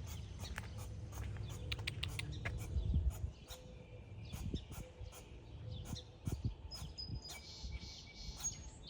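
Small birds chirping in the background, with a low rumbling noise on the microphone during the first three seconds. Short high whistled notes come near the end.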